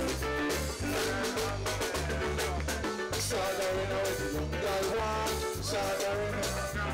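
Live reggae band playing through the stage PA, with a deep bass line repeating in short notes under keyboards.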